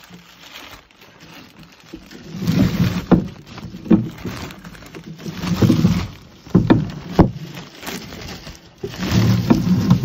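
Plastic bag rustling and crinkling close to the microphone as it is handled, in several loud bursts with a few sharp knocks.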